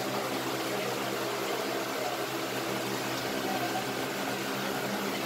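Steady electric hum with a hiss of moving water, typical of the pumps and filtration running on large aquarium tanks.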